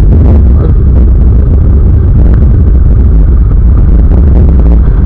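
Motorcycle on the move at road speed: engine running under a loud, steady rumble of wind noise on the camera microphone.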